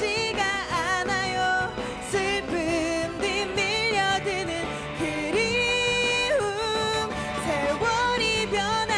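A woman singing a Korean pop song live into a handheld microphone over band accompaniment, her voice wavering with vibrato and holding one note for about a second midway.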